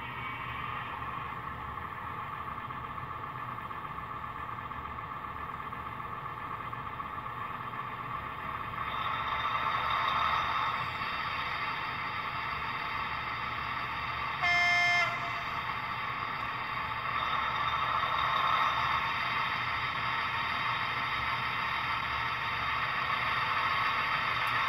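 DCC sound decoder in a ROCO HO-scale Ontario Northland Northlander (ex-TEE) model train playing engine sound through its small speaker; the engine note grows louder about nine seconds in. A single short horn blast sounds about fifteen seconds in.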